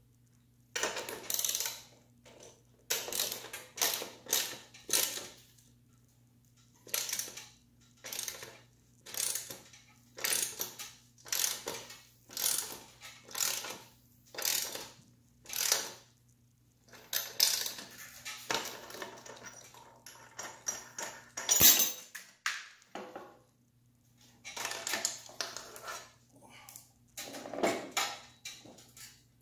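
A machinist clamp being tightened to press headset bearing cups into a bicycle frame's head tube: short metallic scrapes and creaks, roughly one a second, with one sharper click about 22 s in.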